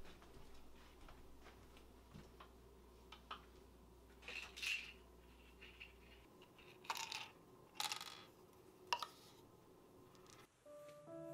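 Quiet clicks and rattles of a pill bottle and medicine cabinet being handled, with small pills clicking onto a hard counter, over a faint steady hum. The low part of the hum cuts out about halfway through.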